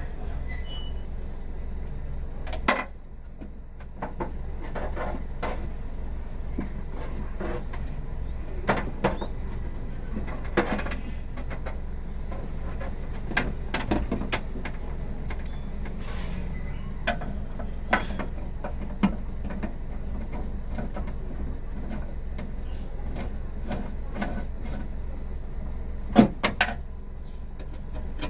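Scattered clicks and knocks of hand work on a car door, over a steady low hum.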